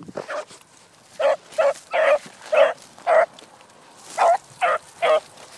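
A dog barking: eight short barks, five in a row, then a pause and three more.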